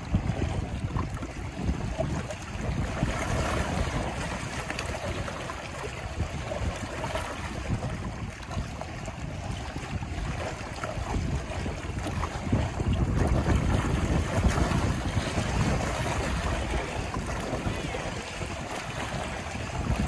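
Wind-driven waves lapping and splashing against shoreline rocks, with wind gusting across the microphone. The noise swells and eases with the gusts, loudest a little past the middle.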